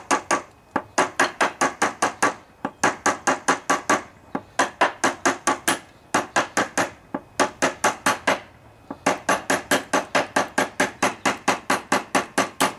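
Hammer tapping quickly on metal, about six taps a second in runs broken by short pauses: driving a tight spacer down over the octagon-shaped part of a riding-mower deck's blade spindle shaft.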